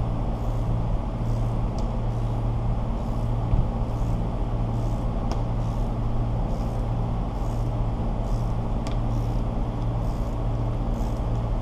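Steady low motor hum with no change in pitch. Over it, a soft swish repeats about every three quarters of a second, and there are a few faint ticks.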